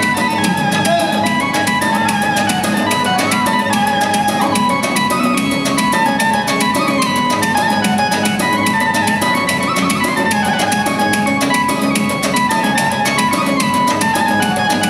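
Loud dance music: a wavering instrumental melody over a steady, fast drum beat.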